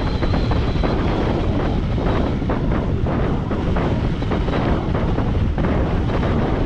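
Rushing airflow buffeting the microphone in flight under a paraglider: loud, steady wind noise with rapid gusty fluctuations.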